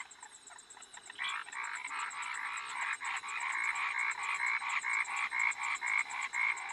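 A night chorus of many frogs croaking in fast pulsed calls, growing louder about a second in. The camper takes this chorus as a sign that the rains are coming.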